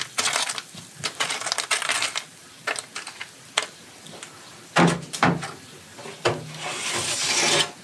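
Freeze-dried fruit pieces clicking and rattling lightly on a metal tray as they are handled. Later come a few heavier knocks, then a scraping slide as a tray is worked out of the freeze dryer's shelves.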